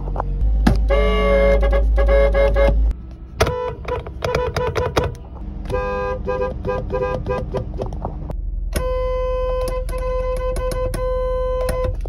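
Car horns of several different cars sounding in turn, heard from inside the cabin. First comes a held honk, then a quick series of short toots, then several honks, and near the end one long steady blast of about three seconds.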